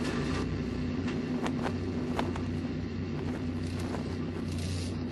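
Steady low engine-like rumble with a constant hum, broken by scattered sharp clicks.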